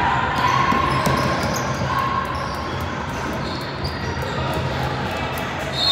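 Basketball bouncing on a gym floor in irregular hits during play, over a steady background of voices in the gym.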